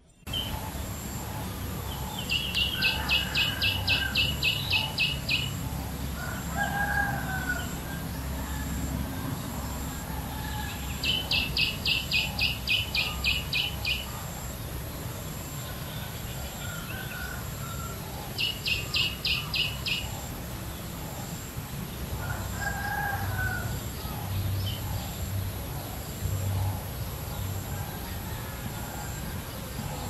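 Outdoor birdsong ambience. The loudest sound is a high, rapid chirping call of about four notes a second, repeated in three bouts of two to three seconds each. A rooster crows a few times underneath, over a steady low background rumble.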